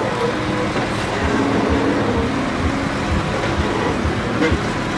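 Jeep Wrangler crawling slowly over a rocky trail: steady engine and road noise, with low thumps about twice a second.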